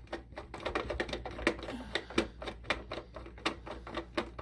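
Irregular small clicks and taps of a long-shank Phillips screwdriver feeling around inside an O-gauge model boxcar for a recessed body screw and working it loose, several clicks a second.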